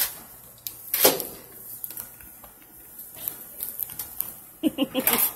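Plastic wrapping on a many-times-wrapped present crinkling and clicking as it is handled and pulled at, with a loud crackle about a second in. A short burst of voice comes near the end.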